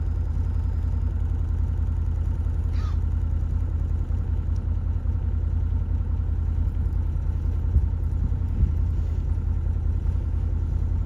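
A vehicle engine running with a steady low rumble, with a faint short rising squeak about three seconds in.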